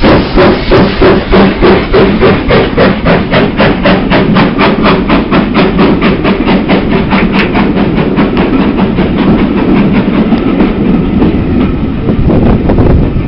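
Steam tank engine, an LBSCR Terrier, pulling away from a standstill. Its exhaust chuffs come quicker and quicker, then fade about two thirds of the way in, leaving the steady rumble of the carriages' wheels rolling past.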